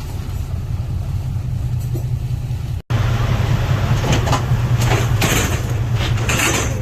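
Boat engine running with a steady low drone. After a brief cut about three seconds in it is louder, with short bursts of higher noise over it.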